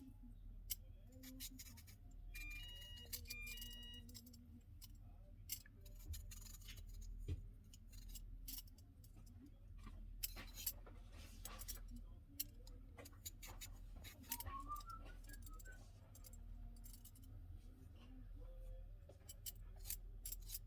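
Victorinox REX swivel-blade peeler shaving thin peelings off a raw potato: a series of short, quiet scraping strokes at irregular intervals.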